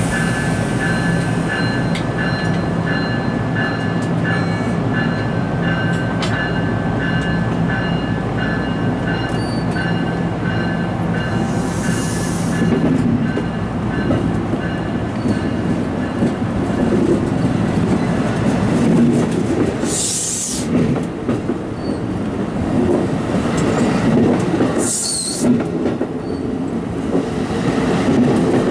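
NJ Transit Multilevel double-deck passenger coaches rolling slowly past alongside the platform, a steady rumble with wheels clicking over the rail joints and a few short high wheel squeals. A thin high ringing, pulsing about twice a second, runs under it and stops about halfway through.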